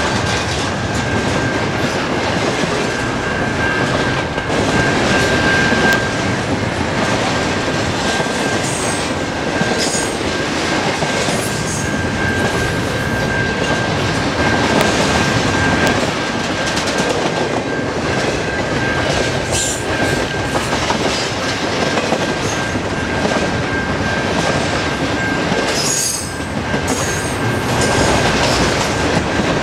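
Double-stack container well cars of a freight train rolling past at speed: a steady loud rumble and clatter of steel wheels on rail. A thin, steady high-pitched whine runs through it, with a few brief sharper squeals now and then.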